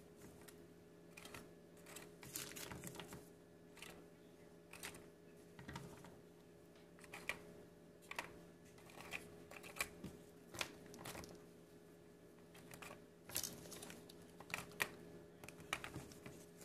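Faint, irregular light clicks and taps as pieces of Hershey's chocolate bar are set down on graham crackers in a metal pie pan, over a faint steady hum.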